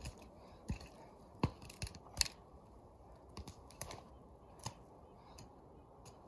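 A short-handled digging tool chopping into dirt and pine needles: a series of sharp, uneven strikes, closer together in the first couple of seconds and sparser after that.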